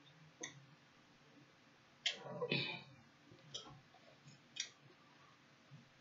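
Eating sounds: a few short sharp clicks and smacks from someone eating a plate of food with a fork, with a louder cluster about two seconds in.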